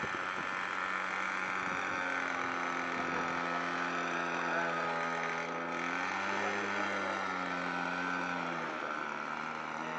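Small model-aircraft engine running steadily, its pitch swelling up and back down about six to eight seconds in, then dropping lower near the end.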